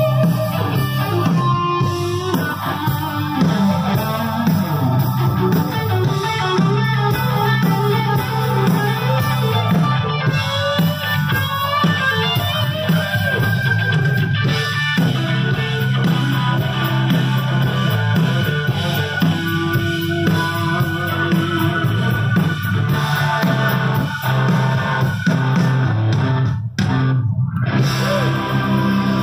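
Live blues-rock band playing loudly, with electric guitar over drums and no singing. There is a brief break in the sound near the end.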